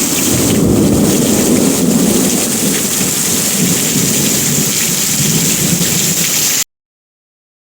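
Heavy rain pouring steadily, with a low rumble of thunder underneath. The sound cuts off suddenly near the end.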